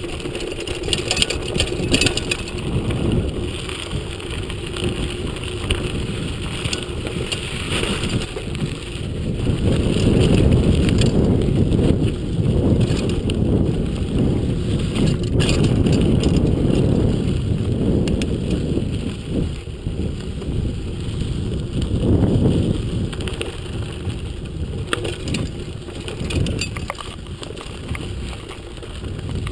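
Mountain bike rolling over a dirt and rocky trail: tyres crunching and the bike rattling, with wind buffeting the action camera's microphone. It is loudest from about a third of the way in until just past halfway.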